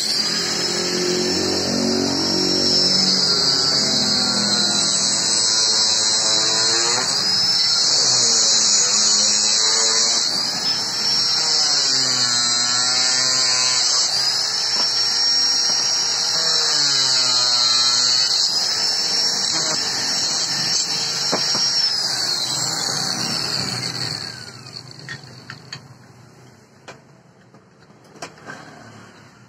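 Handheld angle grinder with a cut-off disc cutting steel angle bar, its motor whine repeatedly dipping in pitch under the load of the cut and picking up again. Near the end it is switched off and winds down, followed by a few light metallic clicks.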